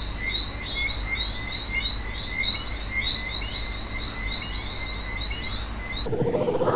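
Outdoor wildlife chorus: short chirping calls repeated two or three times a second over a thin, steady high whine. About six seconds in it cuts off abruptly to a louder, lower rustling noise.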